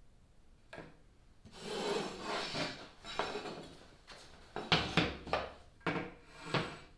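A long level and a speed square handled on a plywood sheet: a scraping rub of the tools sliding across the wood, then about five sharp knocks in the second half as the level is set down on the plywood.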